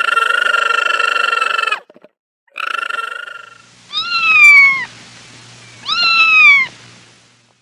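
A cat meowing four times. The first two calls are long and steady, the first about two seconds; the last two are shorter and rise then fall in pitch.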